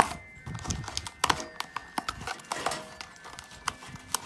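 Hands working the parts and packaging of a camp stove: a sharp click at the start, then irregular clicks, knocks and rustling.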